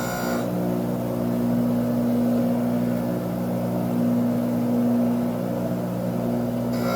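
A machine's motor running steadily, giving an even low hum with a few steady tones.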